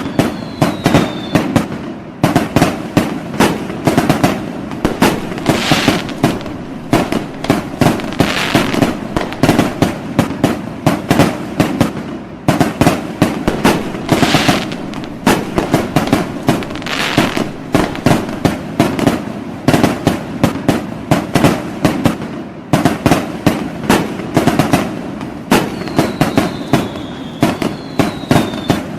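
Fireworks going off without a break: a dense run of bangs and pops several a second. There are short falling whistles at the start and again near the end.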